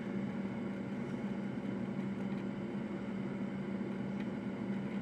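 Steady hum of a small electric fan motor on the repair bench, holding one low tone with an even airy noise above it.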